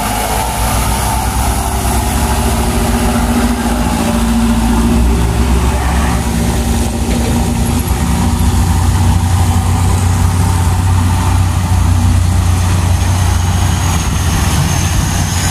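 Diesel dump truck engines running as the trucks drive past one after another, a low steady engine drone. From about halfway a heavier, deeper engine note dominates as a six-wheeled Hino dump truck comes up.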